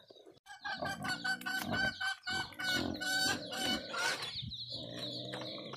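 Chickens clucking: a quick run of short clucks, then a lower, steadier call near the end.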